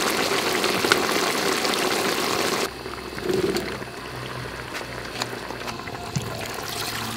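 Curry sizzling in a hot pot, cutting off abruptly about two and a half seconds in. Then a quieter stretch of coconut water being poured from a fresh green coconut into the pot of sweet potato chunks.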